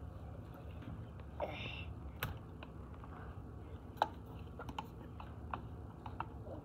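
Scattered light clicks and taps of a spoon and plastic cups and a squeeze bottle being handled while batter is stirred and poured, the sharpest about four seconds in, over a low steady hum.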